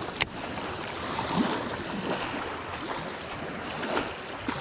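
Small lake waves lapping and washing over a concrete boat ramp, with a single sharp click about a quarter of a second in.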